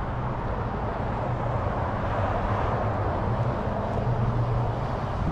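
Steady outdoor background noise: a low hum under an even hiss.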